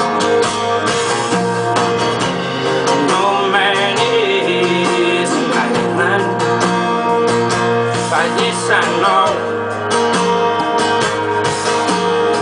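Live acoustic guitar music with a steady low bass line and a gliding melodic line above it, in an instrumental passage with no lyrics.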